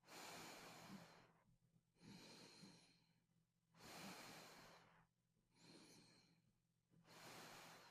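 Faint, slow, even breathing through an open airway: five airy breaths in and out, each under a second, with no snoring rattle, as with the airway held clear by a mandibular advancement device.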